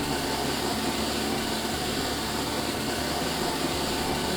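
Vacuum suction running steadily through a DrawerVac, a drawer-style countertop vacuum inlet, with a continuous rush of air.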